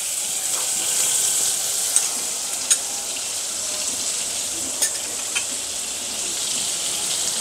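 Butter melting and sizzling in a hot pan: a steady high hiss with a few faint clicks.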